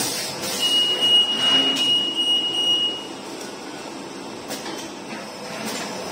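Robotic egg stacking and packaging machine running, its moving parts making sliding, whooshing strokes. A steady high whine sounds from about half a second in and lasts a little over two seconds.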